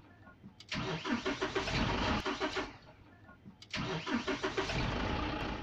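Engine-starting sound effect for the channel's animated intro, heard twice: two pulsing bursts of about two seconds each, separated by a pause of about a second.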